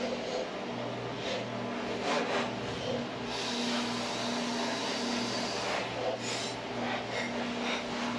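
Channel catfish fillets sizzling and crackling steadily in butter in a frying pan, over a low hum from a microwave oven running.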